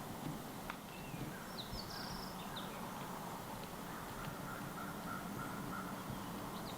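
Birds calling in the woods at dawn: a few short, high chirps over a faint steady hiss, with a few light clicks.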